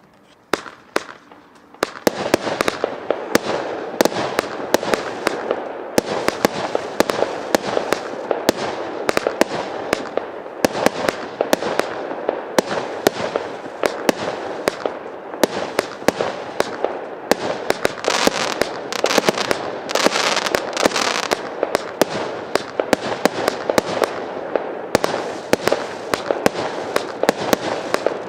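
Evolution Fireworks 'Matrix' firework firing. A few separate pops come in the first two seconds, then a dense, rapid stream of sharp bangs over constant crackling.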